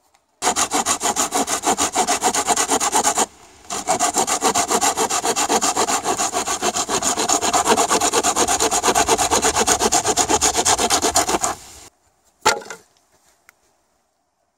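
Folding hand saw cutting through a split wooden stick in rapid back-and-forth strokes, with a brief pause about three seconds in, stopping near the end. A single knock follows shortly after.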